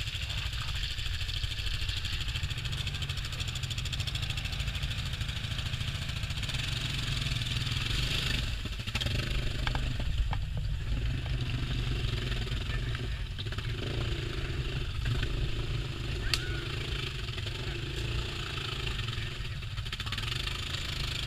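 ATV (quad bike) engine running as the machine works through a mud-filled water hole, with a steady low rumble underneath.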